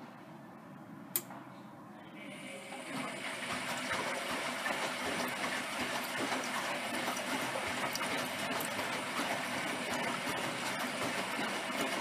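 Zanussi Electrolux 1200 washing machine on a wash cycle: a sharp click about a second in, then from about two seconds a steady rush of water splashing in the drum.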